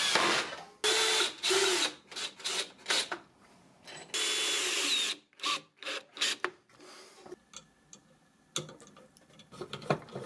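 Cordless drill-driver driving screws through a brass plate into wood: runs of about a second with a steady high motor whine, with many short trigger bursts between them. Near the end, brief rubbing and knocking of wooden parts being fitted by hand.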